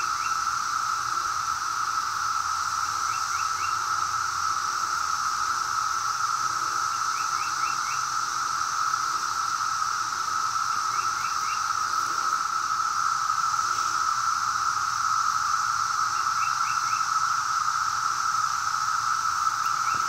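Dense chorus of 17-year periodical cicadas: a steady, unbroken high drone. Short high chirps in threes recur every few seconds over it.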